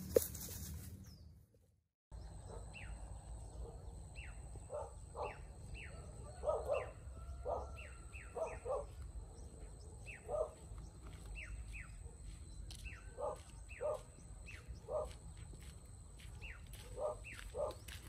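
A dog barking repeatedly, in single barks and quick pairs about every second or so. The barking starts after the sound drops out briefly about two seconds in.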